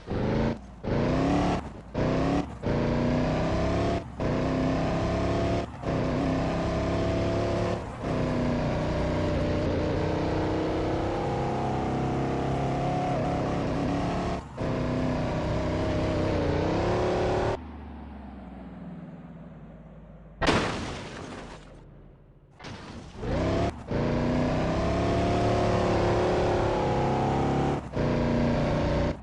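Cummins diesel engine of a K5 Blazer running hard off-road, its pitch rising and falling with the throttle. It breaks off briefly several times. About two-thirds of the way in it drops quieter for a few seconds, then a sharp knock sounds before the engine comes back.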